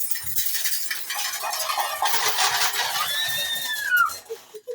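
Household utensils clattering and clinking continuously, with a brief squeal that bends down in pitch about three seconds in.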